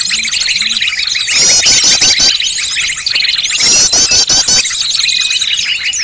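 A looped bird-lure recording: many small songbirds' chirps and calls layered into a dense, continuous chorus, with a burst of fast trilled notes recurring about every two and a half seconds.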